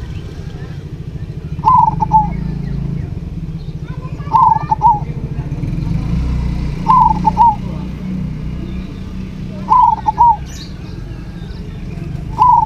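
Local zebra dove (perkutut) cooing: a short phrase of a few notes, repeated five times at an even pace of about one every two and a half seconds, over a steady low hum.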